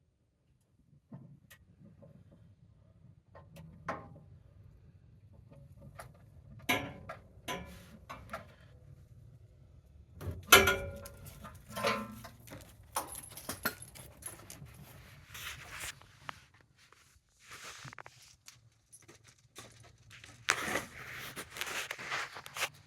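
Irregular metallic clinks and knocks of hand tools at work under the truck, with stretches of rustling. The loudest knock comes about ten seconds in.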